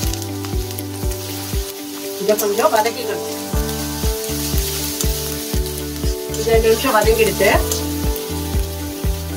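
Chopped onion sizzling in hot oil in a pan as it is stirred with a spatula, under background music with a steady beat.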